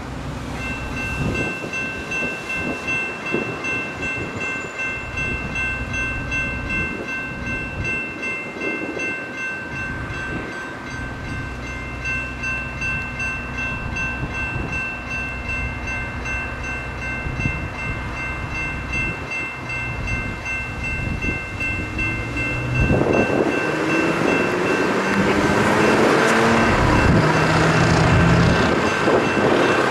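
Railroad crossing's General Signals electronic bells ringing steadily with a fast, even ding. About 23 seconds in, an approaching SacRT CAF light rail vehicle grows louder over the bells, its traction motors giving a rising whine.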